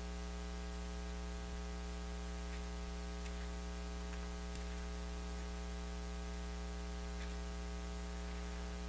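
Steady electrical mains hum with a faint hiss underneath, unchanging throughout, with a few faint light ticks scattered through it.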